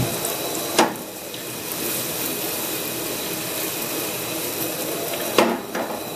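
Pancake batter frying in butter in a hot frying pan: a steady sizzling hiss, with a sharp knock about a second in and two more near the end.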